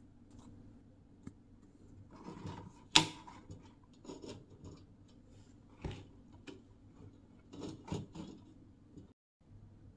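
Handling of a small vinyl blind-box figure, its card and its cardboard box: scattered clicks, taps and rustles, with one sharp tap about three seconds in, over a low steady hum.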